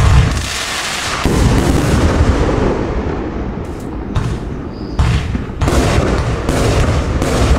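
A 25/30 mm compound fireworks cake firing: a rapid run of overlapping launch shots and aerial bursts, opening with a sudden loud bang and continuing with repeated booms over a constant noisy bed.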